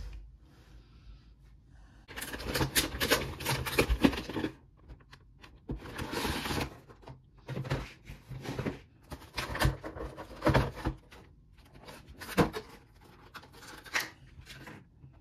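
A cardboard collection box being opened and its clear plastic packaging tray handled: a long stretch of rustling and crinkling about two seconds in, another shorter one a few seconds later, then scattered sharp clicks and taps of plastic.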